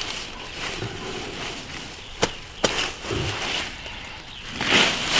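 A cleaver chopping through the stalks of leafy greens: two sharp chops about half a second apart, with leaves rustling near the end as the cut greens are gathered up.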